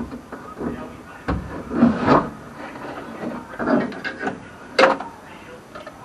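Irregular knocks, clunks and scrapes of parts and tools being handled while stripping out a car body, with the loudest knock a little before five seconds in.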